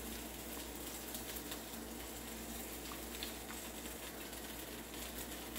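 Blueberry pancake batter sizzling faintly on a hot griddle: a steady low hiss with a few light ticks.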